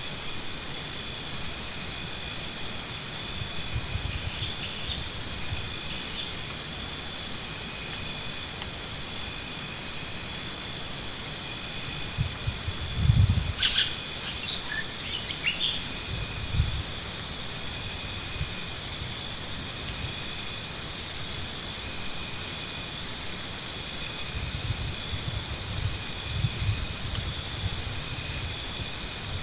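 Insect chirping in high, rapidly pulsed trills that come in phrases of a few seconds with pauses between, over a steady high-pitched hum. A couple of dull low thumps fall near the middle.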